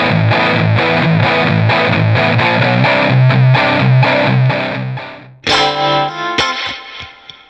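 Distorted electric guitar loop previewed from the GarageBand for iOS sound library, playing a fast, evenly repeated riff that fades out about five seconds in. A different guitar loop with longer held notes starts right after.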